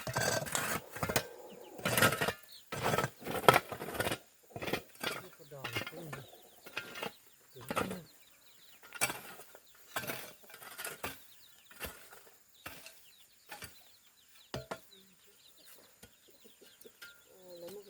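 Hand tool work: an irregular series of sharp knocks and scrapes, several a second at first, then spaced out and fainter after about four seconds.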